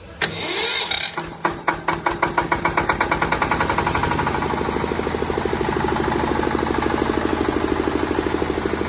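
A 10 kW diesel generator engine starting. It cuts in suddenly, fires a few widely spaced strokes that quicken, and settles into a steady, even diesel running rhythm by about four seconds in.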